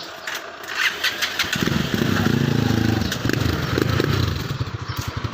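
Honda 125 motorcycle's single-cylinder engine, fitted with a gutted 'kalkal' exhaust pipe, starting. A few clicks and rattles come first; it catches about a second and a half in and runs with a rapid, steady exhaust beat that eases off slightly near the end.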